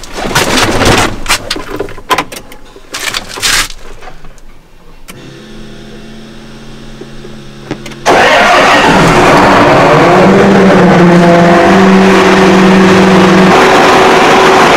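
Clicks and knocks in a tractor cab, then a quiet steady hum, then about eight seconds in the Case IH 540 tractor's diesel engine comes in suddenly, loud and running steadily, warming up after sitting unused for a while.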